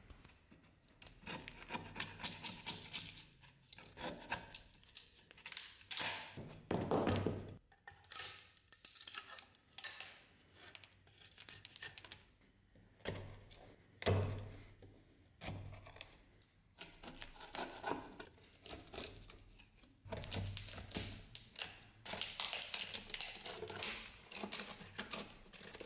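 A flat screwdriver, and later a wood chisel, scraping and gouging out wood softened by furniture beetle, in irregular scratchy strokes with sharp knocks as crumbly wood breaks away.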